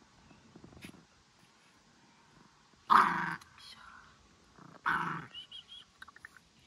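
An animal vocalizing: a faint call about a second in, then two short, loud calls about two seconds apart, followed by a few light clicks.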